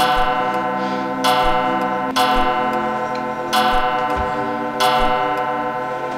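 Soundtrack of a ticking clock, each stroke a bright bell-like struck note ringing out over steady low tones, about once a second.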